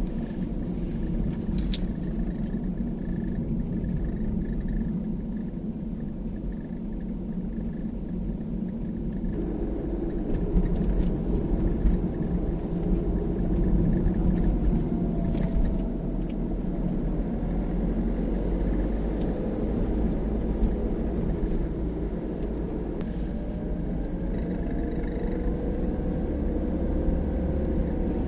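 A 2012 Peugeot 308 SW diesel driving downhill, with a steady low road and engine rumble. A faint gliding squeak rises and falls about halfway through and again near the end. The owner traced the squeak, apparently, to a plastic air deflector in the front left wheel arch.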